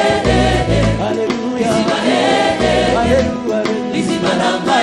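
Congolese gospel worship music: a choir singing in Lingala over low bass notes and light percussion.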